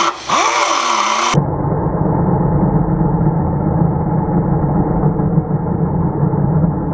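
Cutoff wheel grinding through rusted sheet metal. For the first second and a half it is heard at normal speed with a whine that rises and falls. Then the sound abruptly turns into a dense, low, muffled rumble: the cut played back slowed down along with the slow-motion footage.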